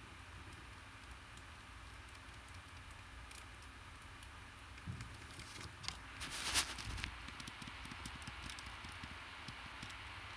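Low background hum with a cluster of soft rustles and clicks near the middle, the loudest a short noisy burst about six and a half seconds in.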